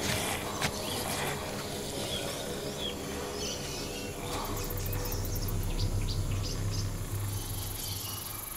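Woodland ambience: insects and birds chirping over a steady low hum, with a few faint clicks.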